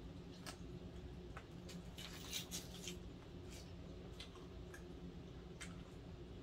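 Faint wet chewing and mouth clicks from eating a potsticker, with a few sharp smacks bunched together about two to three seconds in.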